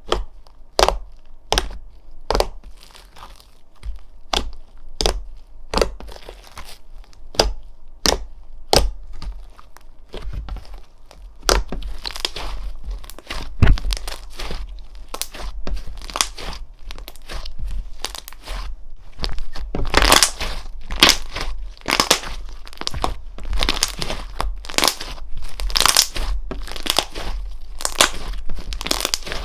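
Slime being squeezed and poked by hand, popping sharply about once a second at first, then crackling in quicker, denser runs that get louder in the second half.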